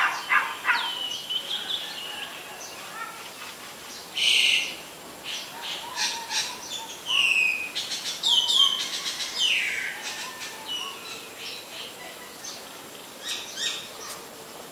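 Birds calling: a string of irregular chirps and short falling whistles with a few sharp clicks, and a harsher burst about four seconds in, thinning out after about ten seconds.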